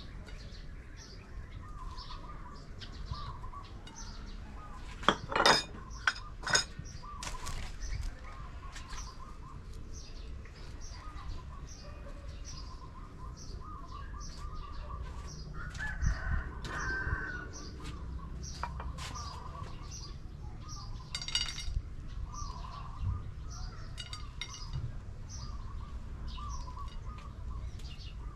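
Birds chirping, with short high notes repeating about twice a second throughout. A few sharp knocks stand out about five and six seconds in, with some clattering around the middle.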